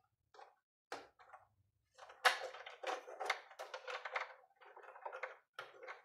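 Small clicks, taps and rattles of plastic and metal parts being handled inside an opened patient monitor as its flex cables are refitted to their connectors; a few scattered clicks at first, then a busy run of them from about two seconds in.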